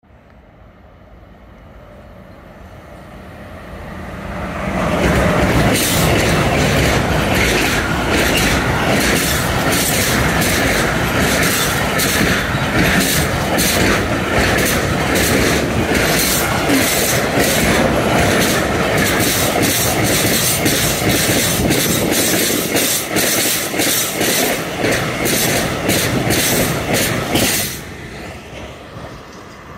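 Container freight train approaching and then passing close by. Its noise builds for about five seconds, then comes a loud rolling rumble with a rapid clatter of wheels over the rail joints, the empty container wagons being especially noisy. Near the end it cuts off sharply as the last wagon passes, leaving a fading rumble.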